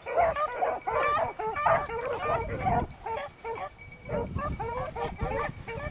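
A pack of beagles baying together while running a rabbit, many short overlapping bays from several hounds.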